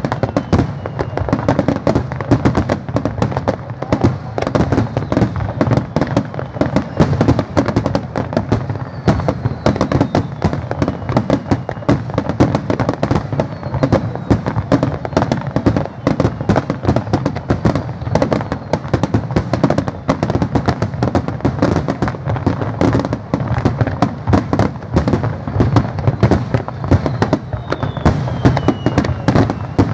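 Fireworks display: a continuous rapid barrage of aerial shell bursts, many bangs a second with no let-up. A few faint falling whistles sound now and then.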